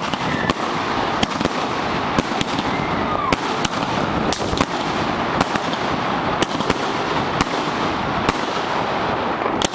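Xplode 'Smile From Hell' (CNY305) consumer firework cake firing continuously: a dense, steady crackle from the gold stars, cut by a sharp bang from a shot every half second or so.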